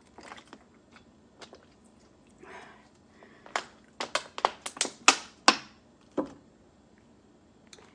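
Close-up eating sounds: sharp wet clicks and smacks of chewing, sparse at first and then a quick cluster of louder smacks around the middle.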